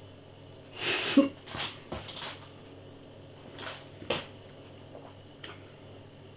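A man's breathy snort about a second in, followed by several short breaths and small clicks.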